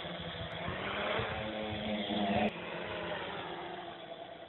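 Quadcopter's brushless 2282-12 motors and propellers buzzing with a steady pitched hum that grows louder as it passes close. About two and a half seconds in the sound drops sharply, then fades as the quad moves away.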